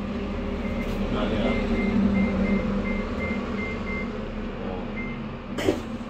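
Haier top-loading washing machine running on a test cycle: a steady motor hum with a faint high-pitched pulse about four times a second through the middle, and a short knock near the end.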